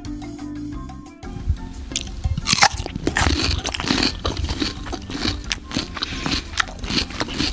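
Background music for about the first second, then kinetic sand being crushed and cut by hand: a dense run of crunching and crackling.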